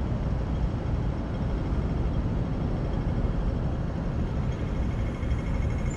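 Steady low rumbling city street noise, with traffic and rough low-end noise on the camera microphone and no clear single event.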